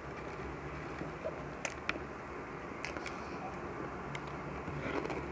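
A person chewing food with their mouth closed: a few short, soft mouth clicks over a steady low background hum.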